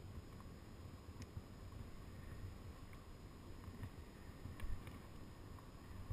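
Muffled low rumble of wind and handling noise on a head-mounted GoPro camera, with two short knocks, one about three quarters of the way through and one at the end.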